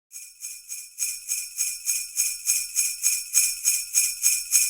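Sleigh bells shaken in a steady rhythm, about three or four jingles a second, quieter at first and louder from about a second in.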